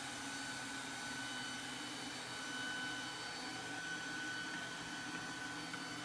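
A bObi Pet robotic vacuum cleaner running across a hardwood floor: a steady motor hum with a thin, high whine over it.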